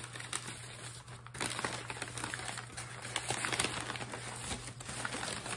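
Newspaper packing crinkling and rustling as it is pulled open by hand, with many short sharp crackles, busier from about a second and a half in.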